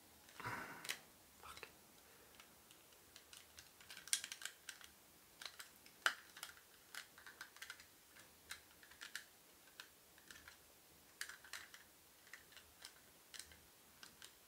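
Faint, irregular small plastic clicks and taps as the hinged shell and legs of a Mighty Max Stings Scorpion plastic playset are worked open by hand.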